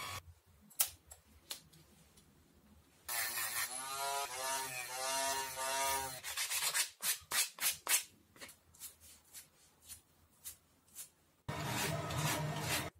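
Small MDF piece being sanded and shaped by hand, with scattered soft scrapes against sandpaper. A handheld rotary tool then runs for about three seconds, its pitch wavering as it cuts. Next comes a quick run of rubbing strokes, and near the end a block is scrubbed back and forth over a sheet of sandpaper.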